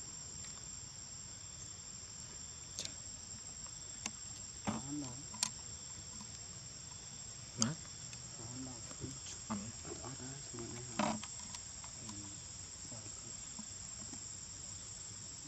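Insects droning steadily in a high, even tone. A few short clicks and faint low sounds come in the middle.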